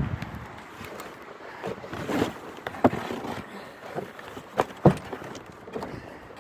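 Gusting wind outdoors with a few irregular knocks and rustles, the sharpest about five seconds in.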